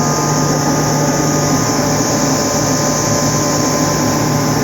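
Kaeser rotary screw air compressor running steadily after servicing: a constant low hum with a strong high hiss over it, unchanging throughout.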